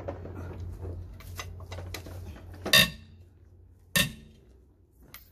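Steel wrench and socket on a car's wheel nut: low handling and scraping, then two sharp metallic clanks with a brief ring, about a second and a half apart. The first clank is the louder.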